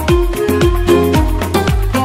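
Upbeat background music with a steady beat of deep kick drums that drop in pitch, over a sustained bass.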